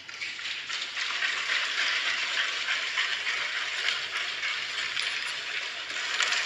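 A large hall full of people applauding: a dense, steady patter of many hands clapping that starts abruptly and swells during the first second.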